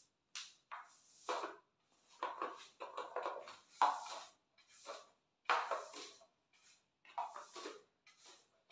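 Household cleaning noises: a run of irregular brushing and rubbing strokes, about one a second, from a broom or mop with a cloth worked over the floor and furniture, each stroke cut off sharply.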